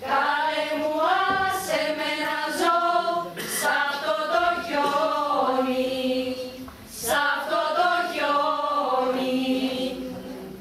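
A group of women singing together without accompaniment, in long sung phrases with short pauses for breath about three and a half and seven seconds in.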